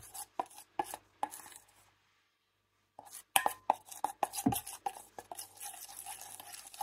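Small spoon stirring melted chocolate, scraping and tapping against the sides of a stainless steel bowl in quick irregular strokes, with a silent break of about a second near the middle.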